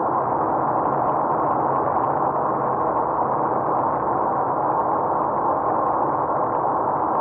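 Steady road and engine noise inside a car cruising on a highway, picked up by a dashcam's microphone so it sounds dull and muffled, with no changes or separate events.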